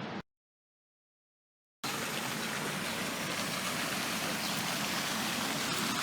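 A steady rushing hiss of running water, broken near the start by about a second and a half of dead silence where the recording cuts.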